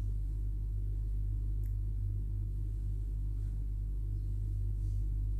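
A steady low hum, with a few faint, brief scrapes of a spatula stirring fried onions in a non-stick pan.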